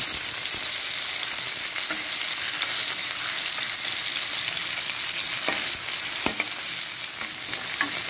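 Climbing perch frying in mustard oil in a kadai: a steady sizzle, with a few sharp clicks of a metal spatula against the pan as the fish are turned, late on.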